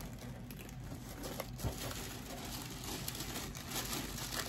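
Green tissue paper rustling and crinkling softly as hands unfold it, with a couple of faint light taps about a second and a half in.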